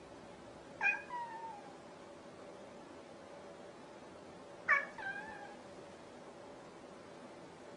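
Grey tabby cat meowing twice, about four seconds apart; each meow is short, starts sharply and falls in pitch at the end.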